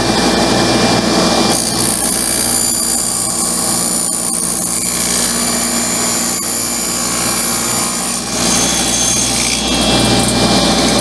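Table saw running with its blade cutting through a cedar board pushed through with a push block. The cutting starts about a second and a half in and stops around eight seconds, and the blade spins free after that.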